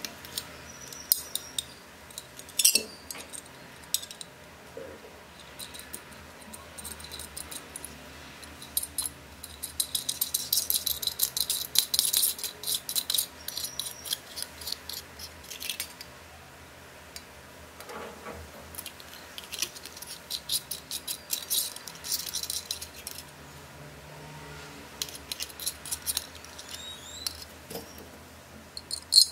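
Thin aluminium drink cans being handled and fitted together: light metallic clicks, taps and scraping, with two spells of quicker clinking around ten and twenty seconds in.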